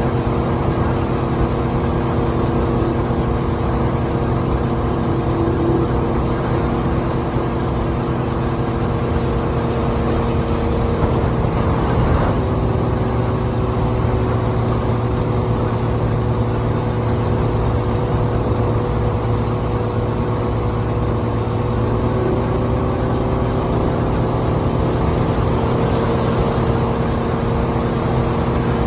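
Speedboat engine running steadily at cruising speed over a constant rush of noise from the moving boat; its note dips slightly about twelve seconds in.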